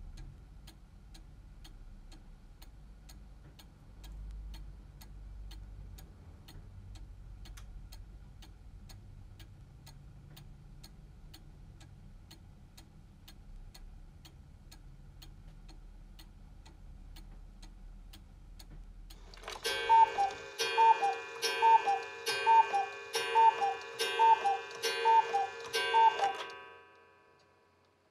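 Black Forest one-day mechanical cuckoo clock ticking steadily, then striking the hour: the two-note cuckoo call sounds about eight times, roughly one a second. Each call comes with a ringing tone that dies away after the last one.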